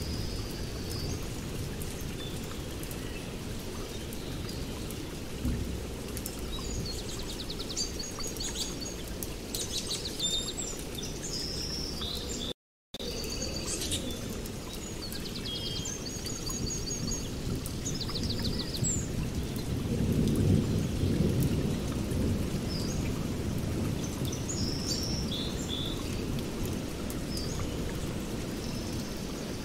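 Small birds chirping and trilling again and again over a steady low rumble, which swells a little about two-thirds of the way through. The sound cuts out completely for a moment near the middle.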